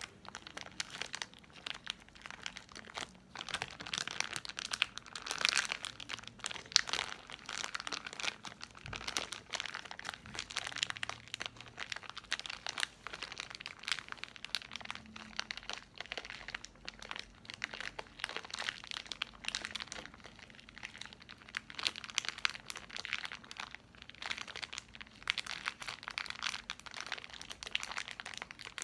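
Plastic snack bag being crinkled and squeezed by hand, with continuous irregular crackling that swells in busier bursts and eases off at times.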